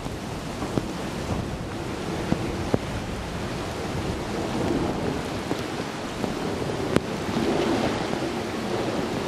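Gusty storm wind buffeting the microphone over choppy open water, with rain falling. The gusts get stronger near the end.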